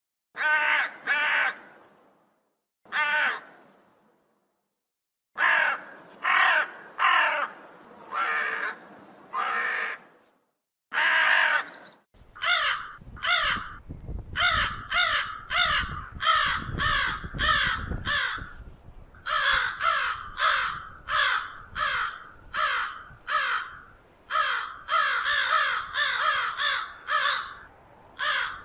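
Crows cawing: harsh single caws with gaps between them, then about halfway through a steady run of caws, about two a second, with a low rumble underneath for a few seconds.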